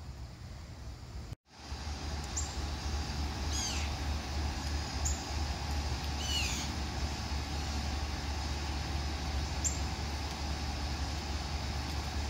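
Outdoor ambience of a steady low rumble of distant traffic with small birds calling over it: a few short high chips and two brief calls that fall in pitch. The sound cuts out for a split second just over a second in, then resumes louder.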